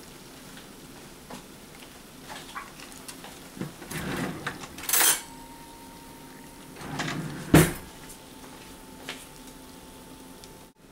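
A few metal clanks and rattles from an oven rack and foil-lined broiler pan being handled, the sharpest knock about seven and a half seconds in.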